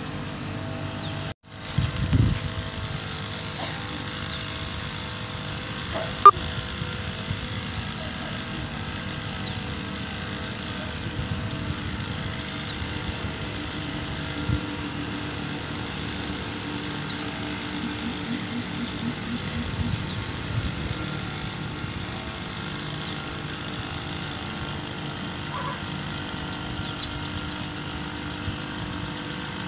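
Steady engine drone of a tractor-driven crop sprayer working a rice paddy, with a brief dropout and swell about a second and a half in. Short, high, falling whistles recur every few seconds over the drone.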